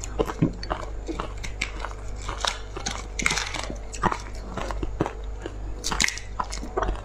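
Close-miked chewing of a mouthful of frozen purple ice: irregular sharp crunches and crackles, several a second. A steady low hum runs underneath.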